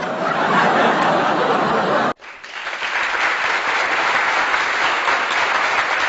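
Applause: a dense patter of many hands clapping. It is split by a sudden cut about two seconds in and resumes at once.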